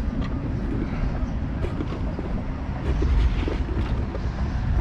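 Steady low rumble of wind on the microphone, with a few faint clicks and knocks from a red plastic bait container being handled.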